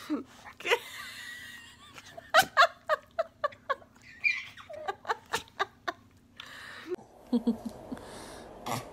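A baby laughing in short, repeated bursts of giggles.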